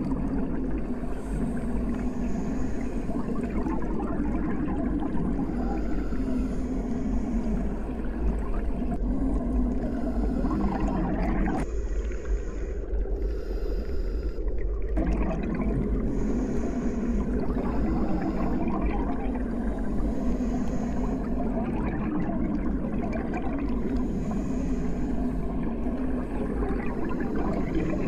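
Muffled underwater ambience: a steady deep rumble and gurgle with wavering low tones, as heard through a submerged microphone. It thins out for about three seconds near the middle, then comes back.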